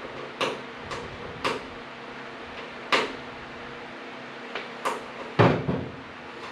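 Hood latch hardware being handled and test-fitted in freshly drilled holes: a series of sharp, irregularly spaced metal clicks and clacks. The loudest comes with a dull thump about five and a half seconds in, over a steady low hum.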